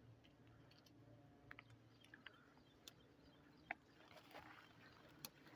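Near silence with a faint steady low hum and a few faint sharp clicks scattered through it, the clearest about halfway through and near the end.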